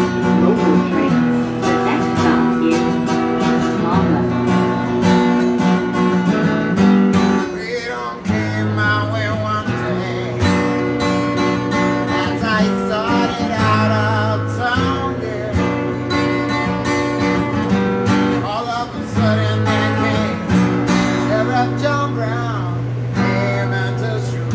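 Acoustic guitar played solo, chords strummed and picked over bass notes that change every second or two.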